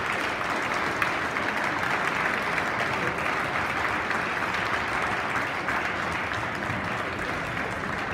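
Audience clapping steadily throughout: applause for the end of the match.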